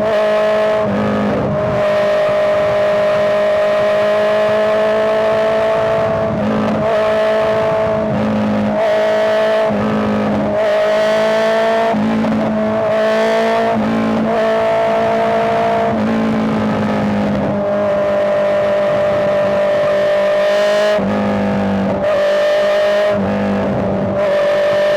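Honda CBR650R's inline-four engine running hard at fairly steady revs, its pitch dipping and sliding briefly every second or two as the throttle comes off and on.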